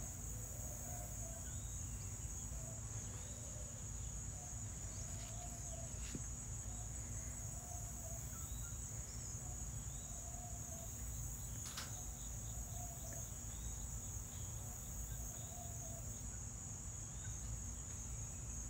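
Steady high-pitched insect chorus trilling without a break, with faint repeated chirps and a low rumble underneath.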